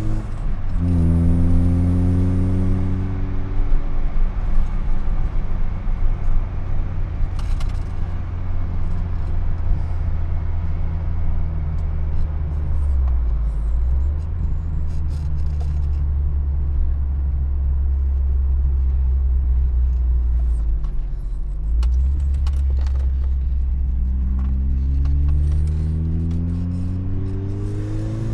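Opel Astra GSi 16V's C20XE 2.0-litre 16-valve four-cylinder engine, heard from inside the cabin while driving. It runs at steady revs for most of the time, with two brief dips. In the last few seconds its note rises as it accelerates.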